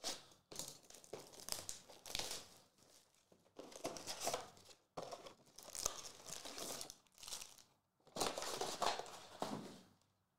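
Plastic wrapping crinkling and tearing as a box of Panini Phoenix football card packs is opened and emptied, in several rustling bursts with short pauses between them.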